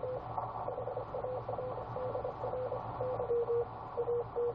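Morse code (CW) from a ham radio transceiver's speaker: a single steady note keyed on and off in dots and dashes at a relaxed pace, over a low steady hum. About three seconds in, the note shifts slightly in pitch and gets louder.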